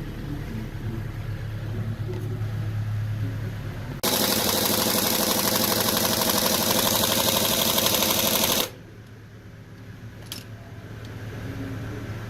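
Toyota 14B four-cylinder diesel engine running with a steady low hum. About four seconds in, a much louder, fast-pulsing clatter cuts in abruptly, lasts about four and a half seconds, and cuts off just as suddenly, leaving the lower hum.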